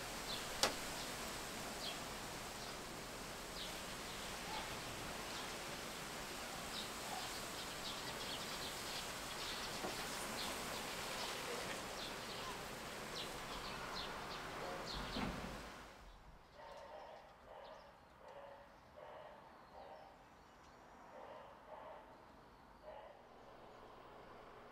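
Outdoor garden ambience: a steady hiss with scattered short, high bird chirps, and a single sharp click just after the start. About two-thirds of the way through it cuts to a quieter ambience with softer, lower calls.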